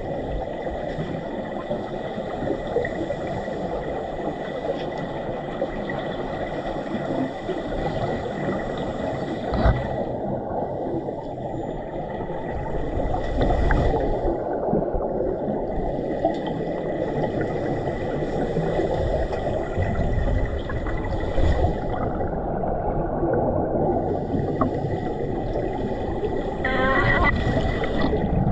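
Underwater swimming-pool noise picked up by a submerged camera: a steady dense rush with faint steady high tones, and air bubbles gurgling now and then, most plainly near the end, where scuba divers are exhaling.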